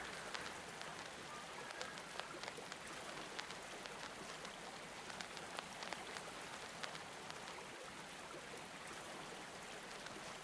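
Faint, steady rain-like water noise sprinkled with scattered light clicks and crackles, like the surface noise of a vinyl record between tracks.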